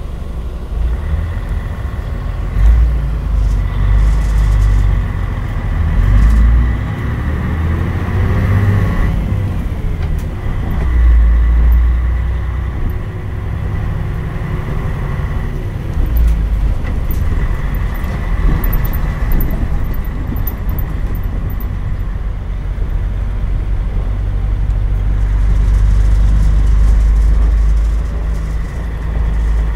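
Mitsubishi Fuso (MBM) KL-MP37JK city bus under way, heard from inside the cabin: a deep, steady diesel engine and road rumble. About a third of the way in the engine note climbs for a few seconds and then drops away, with a smaller rise a little past halfway.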